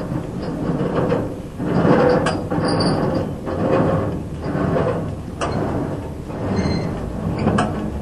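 Case 230 square baler's needles and knotter drive being turned over slowly, with uneven metallic scraping and clunks as the needles swing up through the bale chamber.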